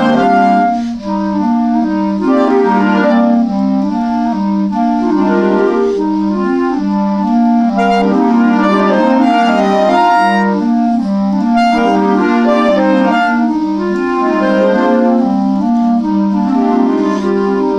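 Clarinet playing music, its held melody notes sounding over a steady accompaniment of repeated low notes, about two a second.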